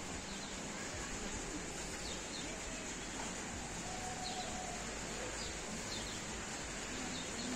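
Outdoor park ambience: a steady background hiss with faint, short bird chirps about once a second.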